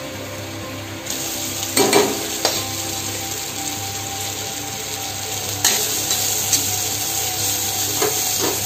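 Grated coconut sizzling in coconut oil in an iron kadai. About a second in the sizzle gets louder as browned pieces go into the pan, and a metal spatula scrapes and knocks against the kadai a few times as it is stirred.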